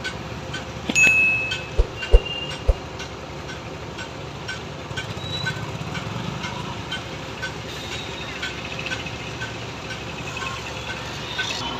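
Heavy construction machinery running steadily with a low rumble, with a few sharp knocks in the first three seconds and a couple of brief high squeals.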